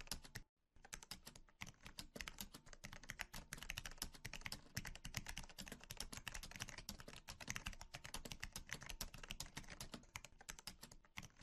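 Faint, fast computer keyboard typing: a steady run of key clicks, several a second, beginning just under a second in.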